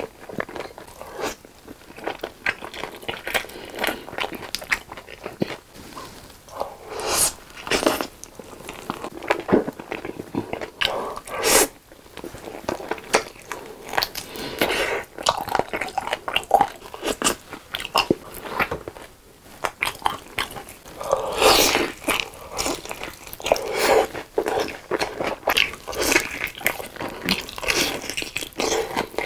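Close-miked biting and chewing of sauce-glazed Korean seasoned fried chicken on the bone. The crispy coating crunches in an irregular string of bites, with the loudest clusters of crunches about a third of the way in and again late on.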